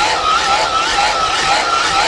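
Battery-powered blower running steadily, forcing air into a wood fire. Its motor whine wavers up and down about three times a second over a loud rush of air.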